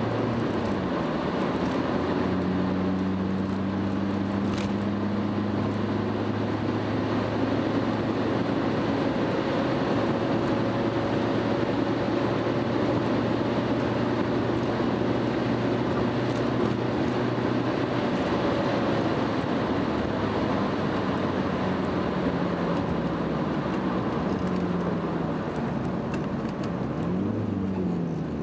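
Car engine and tyre noise heard from inside the cabin while driving, the engine's pitch holding steady for long stretches with a few drops in pitch. Near the end the pitch falls and the noise eases as the car slows.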